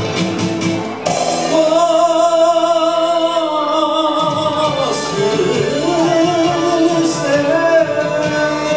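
A man singing into a handheld microphone over a backing music track, holding long wavering notes. His voice comes in about a second in.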